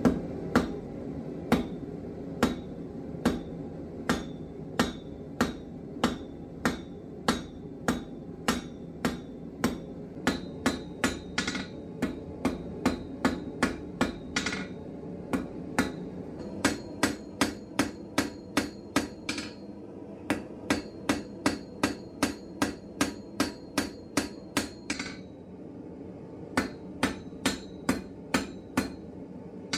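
Blacksmith's hammer striking hot round steel stock on an anvil in a steady rhythm, about two blows a second, each with a short metallic ring. A steady low rumble runs underneath.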